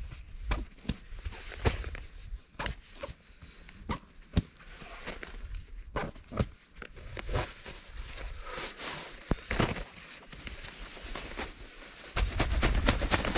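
Handling noise as an orange military survival sleeping bag is worked out of its green nylon stuff sack: fabric rustling and scraping with irregular sharp clicks and knocks. It grows louder and deeper near the end as the bag comes free.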